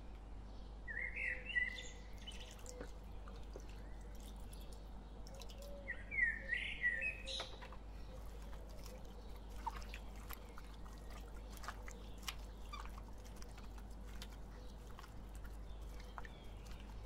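A bird chirping in two short, wavering phrases, one about a second in and one about six seconds in, over a faint steady hum. Scattered small clicks and taps follow in the second half.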